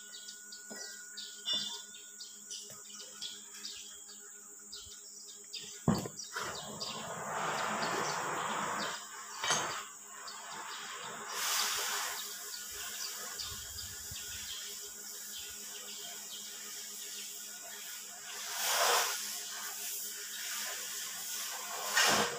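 Quiet ambience with a steady high hiss, broken by a few knocks and clinks of metal as a heavy differential carrier hanging from a chain hoist is handled; the sharpest knocks come about six seconds in, near ten seconds, and just before the end.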